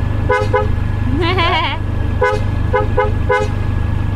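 Electronic toy vehicle horn beeping: about six short beeps in pairs and singles, with a brief wobbling tone about a second in, over a steady low hum.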